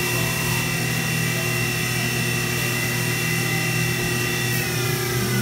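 2003 Fadal 4020HT CNC vertical mill running, a steady high spindle whine over a low machine hum. Near the end the whine falls in pitch as the spindle slows.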